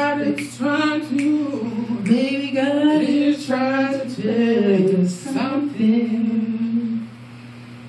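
Two women singing a gospel song without accompaniment, over a steady low hum. The singing stops about seven seconds in.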